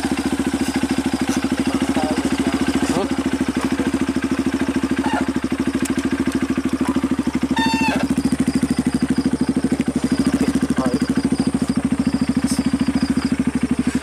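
Motorcycle engine running steadily, its rapid, even firing pulse unbroken, as the bike is ridden along.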